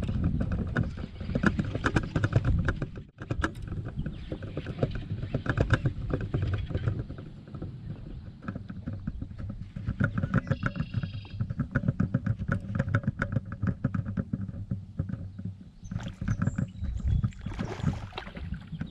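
Fishing reel cranked in runs during a lure retrieve, a fast irregular clicking with short pauses. Near the end a hooked fish thrashes and splashes at the surface.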